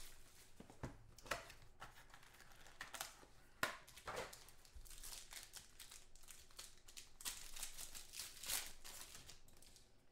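Foil trading-card pack wrapper crinkling and tearing as a pack is opened by hand: soft, irregular crackles and rustles, busiest about seven to nine seconds in.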